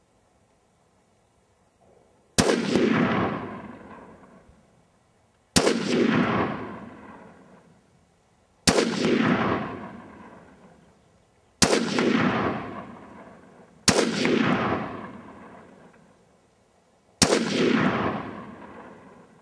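Short-barrelled AR-15 rifle fired six single shots, spaced about two to three seconds apart, each followed by a long echoing rumble that dies away. The slow, deliberate pace fits breaking in a new barrel.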